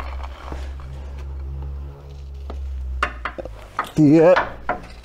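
Metallic clinks and knocks from a steering rack and tools being handled during fitting, over a steady low hum. A brief vocal sound comes about four seconds in.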